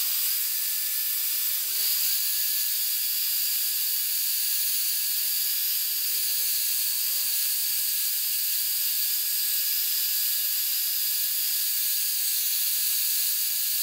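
Electric drill running as a rotary polisher, spinning a small Velcro glass-polishing disc loaded with cerium oxide compound against a car windshield. It makes a steady high whine and hiss at an even speed throughout.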